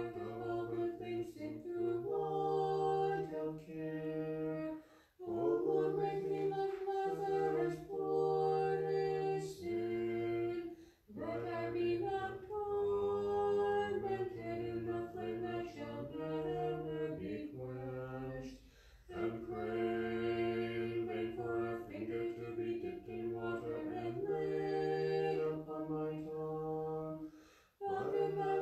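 Small a cappella choir chanting an Orthodox liturgical hymn in held chords of several parts. It goes in long phrases with brief pauses between them, about every six to eight seconds.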